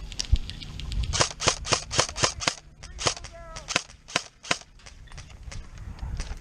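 Airsoft guns firing: a run of sharp pops at about four a second through the first half, then scattered, fainter shots.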